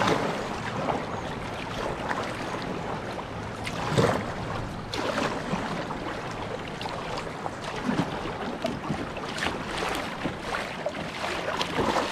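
Swift river water rushing past a kayak, with splashes every few seconds, the loudest about four seconds in.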